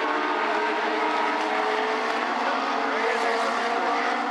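Legend race cars' Yamaha 1200 cc four-cylinder motorcycle engines running around the oval, a steady engine drone with several pitches layered together.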